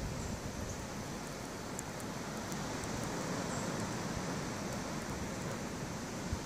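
Blizzard wind blowing steadily, a constant rushing noise with a few faint clicks.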